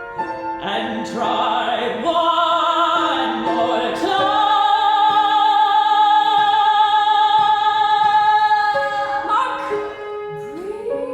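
Operatic soprano singing with wide vibrato, climbing to a long high note held for about five seconds before it falls away, over piano accompaniment.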